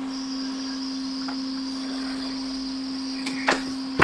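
Hot air rework station blower running with a steady hum and a thin high whine above it, with two light clicks near the end.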